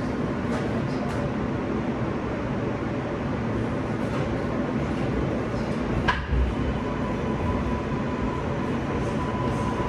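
New York City subway train running along the track, heard from inside the car: a steady rumble and hiss. About six seconds in there is a sharp knock, followed by a thin steady whine that holds to the end.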